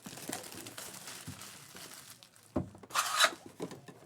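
Plastic wrapping on a box of trading cards being crinkled and torn open: soft rustling, a knock, then a short loud rip near the end.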